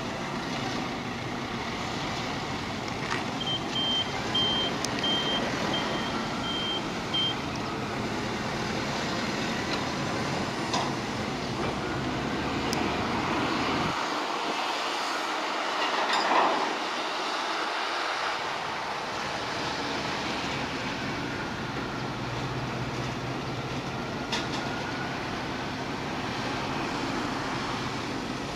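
Engines of a cargo crane and heavy machinery running steadily during cargo loading, with a string of short high warning beeps a few seconds in that lasts about four seconds.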